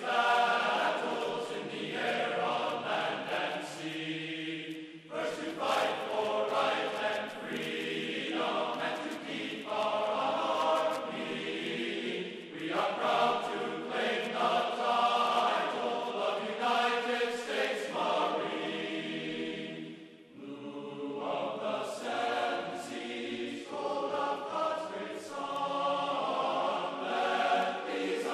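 Background choral music: several voices singing long held notes in phrases a few seconds long, with a short break about twenty seconds in.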